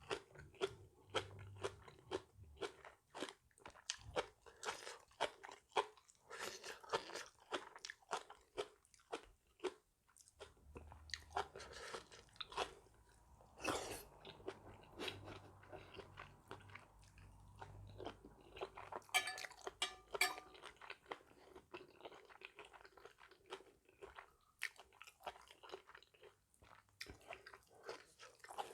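A person eating seafood papaya salad close to the microphone: a long run of crisp crunching bites and chewing, with a few louder crunches in the middle.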